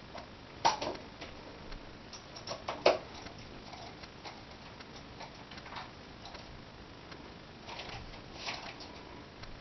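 Small clicks and ticks of a screwdriver and tiny screws against the metal mounting rails of a laptop LCD panel as the rail screws are fitted, with two sharper clicks in the first three seconds.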